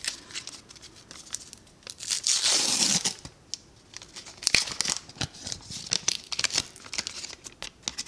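A foil baseball card pack (1989 Upper Deck) being torn open, with one loud rip about two seconds in. After it, the foil wrapper crinkles and rustles as the cards are pulled out.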